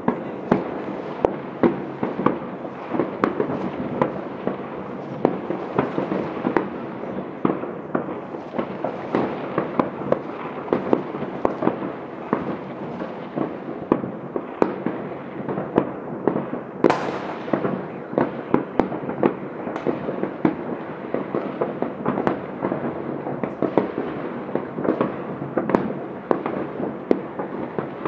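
Many distant fireworks going off across a city at once: a constant rumble of bangs and crackling pops, with one sharper, closer bang about seventeen seconds in.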